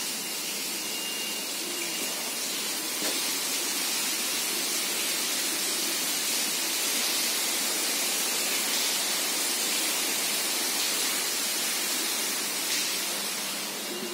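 Water gushing and spraying from a broken water main, a steady hissing rush.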